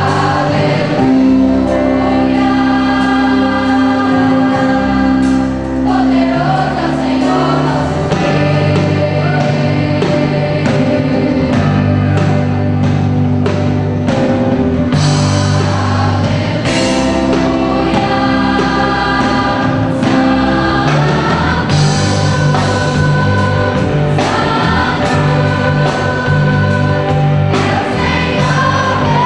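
Gospel music: a choir singing with band accompaniment, over a steady bass line and a regular beat.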